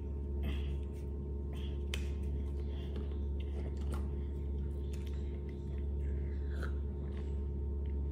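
Chewing and mouth sounds with scattered small clicks, over a steady low hum.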